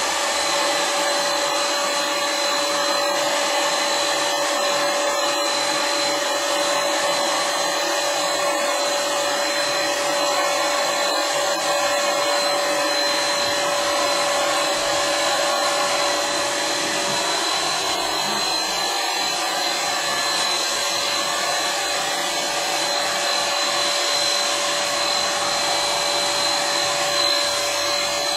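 Handheld electric paint sprayer running without a break as it sprays a coat of paint onto a wooden cabinet, a steady hiss with a constant whine in it.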